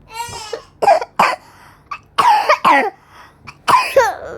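Repeated coughing in short bouts of two or three sharp coughs, the cough of someone sick with a cough.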